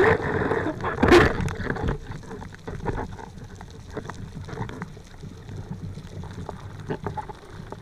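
Underwater ambience heard through a diver's camera: a low steady hiss scattered with small clicks and crackles, with one louder knock about a second in. The sound fades slightly after the first two seconds.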